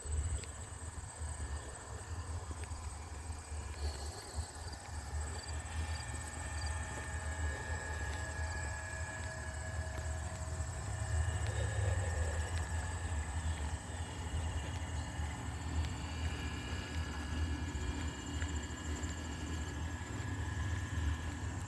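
Outdoor trail ambience: a steady, high-pitched drone of insects over an uneven low rumble.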